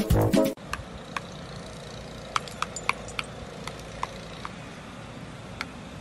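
A brass music phrase cuts off about half a second in. Then comes steady background noise with light, thin metallic clinks at irregular intervals, roughly one or two a second.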